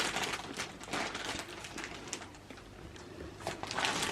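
Irregular rustling and crinkling of plastic as a chimney balloon is handled and worked into the fireplace, fading quieter about halfway through and picking up again near the end.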